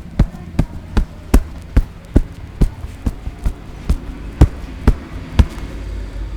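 Rapid hand strikes of a barber's massage: about a dozen sharp slaps, two to three a second, stopping about five seconds in.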